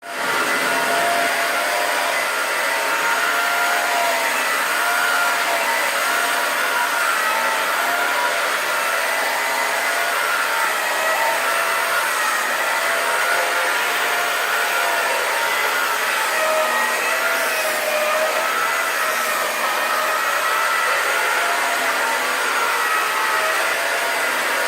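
Vacuum cleaner running steadily, a loud rushing hiss with a motor whine whose pitch wavers slightly.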